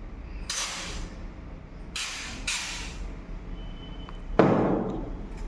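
Aerosol can of white contrast paint sprayed onto a pie gauge in three short bursts, the spray used to give a white background for magnetic particle testing. Near the end comes a louder sudden noise that fades away over about a second.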